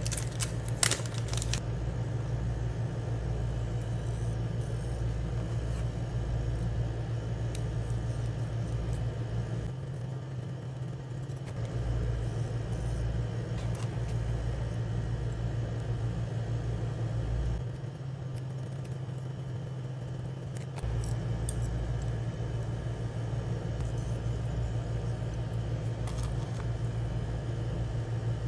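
Steady low mechanical hum and rumble that drops back briefly twice, with a few sharp metallic clicks about a second in from fishing hooks, swivels and split rings being handled.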